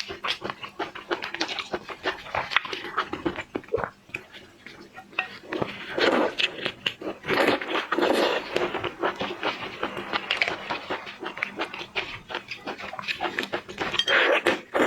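Close-miked seafood eating sounds: wet chewing, sucking and slurping, with many quick mouth clicks and breathy bursts.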